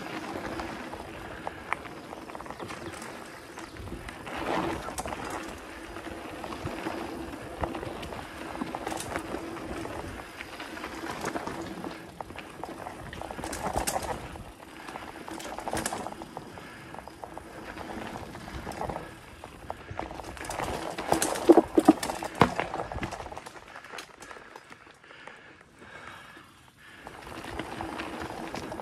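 Specialized Stumpjumper mountain bike ridden along a dirt forest singletrack: tyres rolling over dirt and roots, with frequent knocks and rattles from the bike. The sharpest clatter comes about two-thirds of the way in, and it goes quieter for a few seconds near the end.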